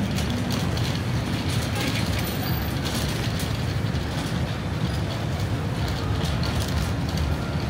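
Wheels of a metal shopping cart rolling over concrete pavement: a steady low rumble with a loose, irregular rattle from the wire basket.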